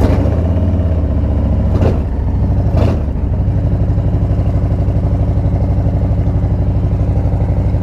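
Harley-Davidson Street Bob 114's Milwaukee-Eight 114 V-twin engine idling just after being started, with a loud, even, lumpy pulse. It runs a little stronger for the first couple of seconds, then settles.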